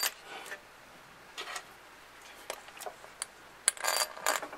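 Irregular light clicks and taps of metal parts being handled and fitted at an engine's coolant water neck, with a short cluster of louder clicks near the end.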